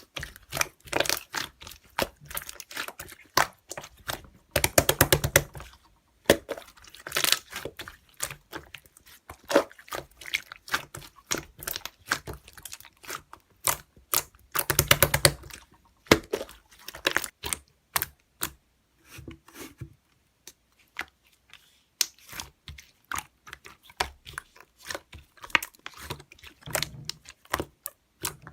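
Slime being squeezed and worked by hand, making quick clicks, crackles and pops of trapped air, with two louder bursts of dense popping about five and fifteen seconds in.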